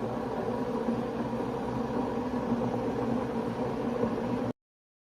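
Steady electric hum of a running appliance motor, with a few even pitched tones, that cuts off abruptly about four and a half seconds in.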